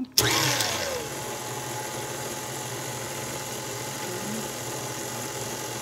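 Electric stand mixer switched on, starting suddenly and then running steadily, its flat beater mixing flour and milk for pie dough.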